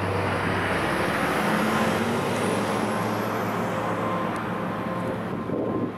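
A road vehicle passing: a broad rush of traffic noise that builds over the first two seconds and slowly fades.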